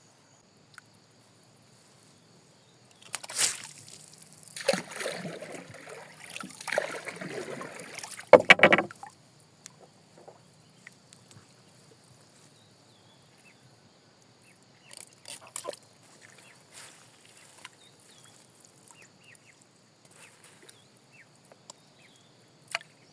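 Water sloshing and splashing around a small boat as a gill net is pulled up to be checked, in bursts between about three and nine seconds in; after that only scattered small knocks.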